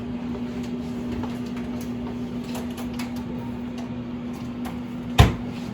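Steady low electrical hum with a few faint ticks and one sharp click about five seconds in.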